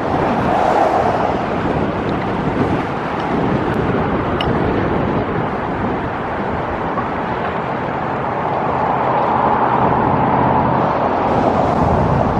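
Strong wind buffeting the microphone in a steady rushing noise, with a low engine hum underneath that becomes clearer in the second half.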